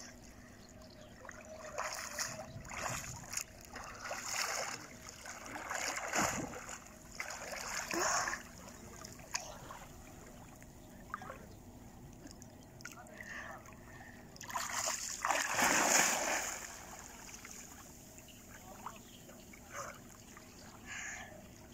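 Splashing of a child swimming in shallow, calm sea water: irregular splashes from his arms and kicking legs every second or two, with a longer, louder splash about two-thirds of the way through.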